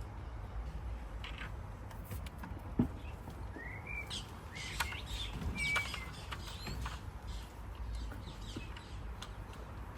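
Birds chirping, a few short rising calls, over a steady low hum. Scattered light clicks and knocks, the loudest about three seconds in.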